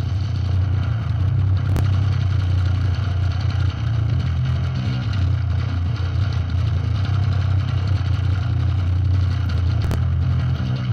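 Doom death metal mix playing back, thick and dense, with a steady heavy low end.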